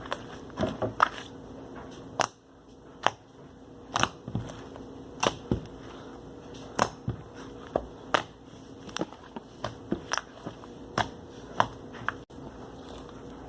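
Soft clay slime being kneaded and pressed by hand while more activator is worked in, giving irregular sharp clicks and pops about once or twice a second.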